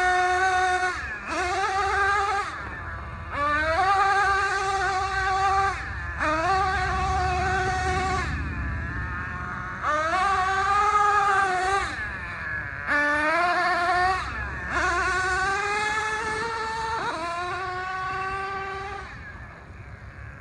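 Traxxas Revo 3.3 RC monster truck's small two-stroke nitro engine running at high revs. It is throttled in repeated surges about every two seconds: the pitch climbs with each burst of throttle and falls away as it lets off.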